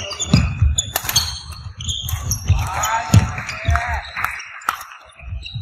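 Badminton doubles rally on a wooden indoor court. Players' footsteps and sneaker squeaks on the floor, with a few sharp racket hits on the shuttlecock.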